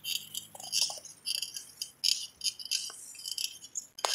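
A bicycle rattling and jangling as it is ridden over pavement: an irregular, high clatter, with one sharp click just after four seconds.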